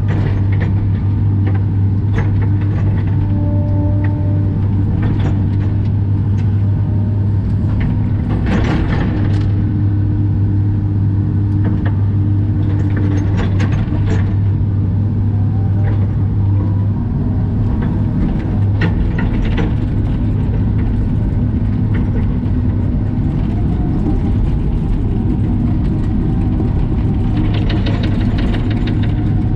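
Caterpillar excavator's diesel engine running steadily under load, heard from inside the cab, with a whine from the hydraulics that shifts in pitch as the boom and bucket move. Scattered clanks and scrapes come from the steel bucket digging dirt and rock, and they are most frequent near the end.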